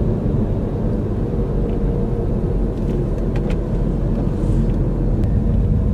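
A car being driven: a steady, low rumble of road and engine noise.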